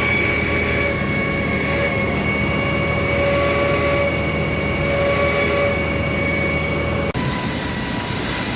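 Concrete pump running steadily, a loud mechanical drone with a high steady whine. It changes abruptly about seven seconds in.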